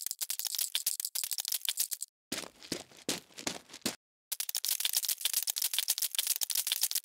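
Stop-motion sound effect: a fast run of small plastic clicks and rattles. It breaks off briefly about two seconds in and again about four seconds in.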